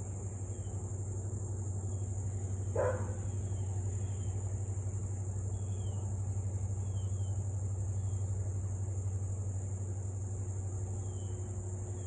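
A steady low rumble with a steady high-pitched drone over it and faint short chirps, broken once about three seconds in by a single short dog bark from the husky.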